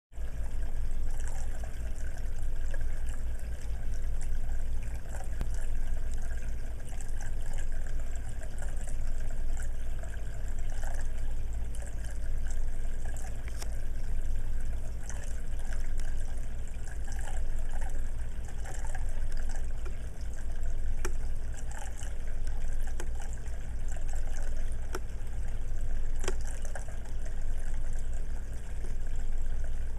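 Water trickling and splashing down the tiers of a cascading tabletop fountain, steady throughout, over a low steady hum.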